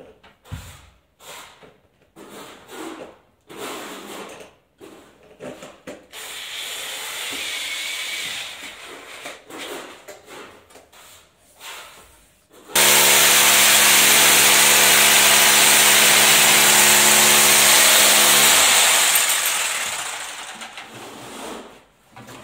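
Power drill running steadily for about six seconds, boring a hole for a facade dowel through the reinforced base coat and mineral wool into the concrete ceiling slab. It starts suddenly about halfway through and winds down near the end, after scattered knocks and handling noises.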